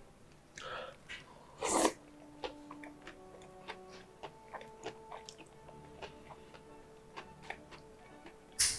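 Thick jjajangmyeon noodles slurped into the mouth in two loud slurps, about two seconds in and again near the end, with small wet chewing clicks between them. Soft background music plays underneath.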